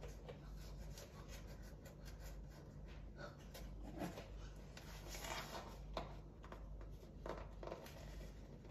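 Faint, intermittent scraping and rustling of things being handled, with a few light knocks, over a steady low hum.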